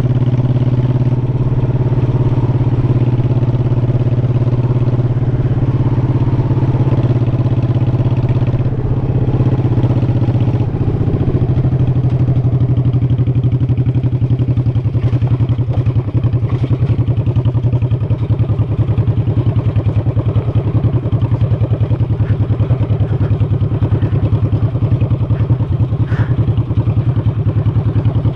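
V-twin motorcycle engine running steadily under way, then about eleven seconds in dropping to a slower, loping pulse, as the bike slows to low speed.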